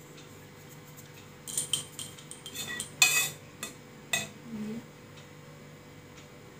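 A steel spoon clinking against a dish: a quick run of light clinks and taps, the loudest about three seconds in.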